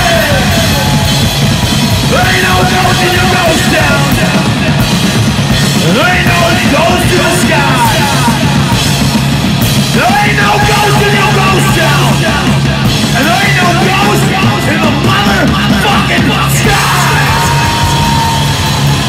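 Loud live hard rock from a guitar-and-drums duo: distorted electric guitar and a pounding drum kit with crashing cymbals, under shouted lead vocals that break in every few seconds.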